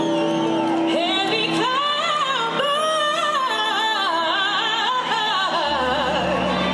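Live band music with a woman singing a wavering, ornamented vocal run over a held chord; the deep bass comes back in near the end.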